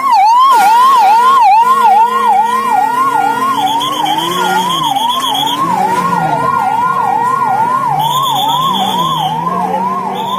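Ambulance siren sounding in a fast rising-and-falling yelp, about three sweeps a second. A higher steady tone switches on and off alongside it.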